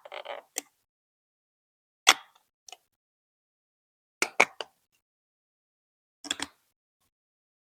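Hard plastic Lego Duplo bricks being set down and pressed together: short groups of two or three sharp clicks and knocks about every two seconds, with silence between.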